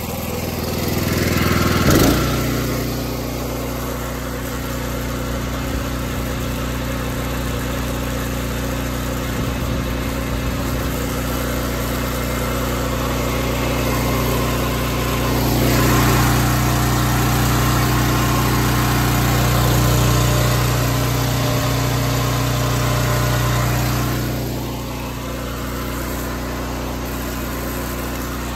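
Small gasoline engine of a direct-drive pressure washer running under load while the wand sprays. It picks up speed about two seconds in as it is throttled up to full, then runs steadily, louder for a while in the middle.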